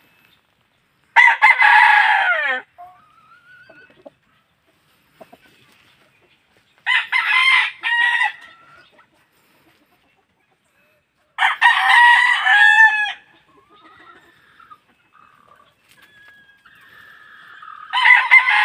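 Gamecock roosters crowing four times, each crow about a second and a half long, spaced roughly five seconds apart, with faint short calls in between; the last crow begins near the end.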